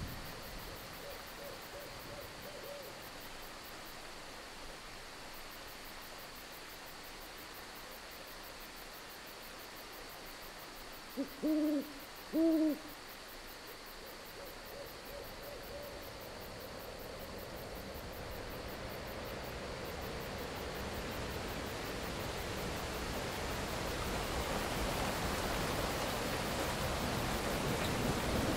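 An owl hooting twice, two low hoots less than a second apart about halfway through, over a steady hiss of rain that grows louder toward the end.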